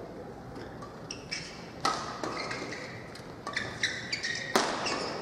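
Athletic shoes squeaking in short high chirps on the badminton court mat, with a few sharp knocks, the loudest about four and a half seconds in, ringing briefly in the hall.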